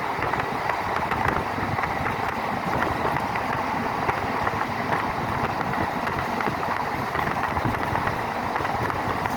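Passenger train running at speed, a steady rattling clatter of wheels on the track with the rush of the moving coach.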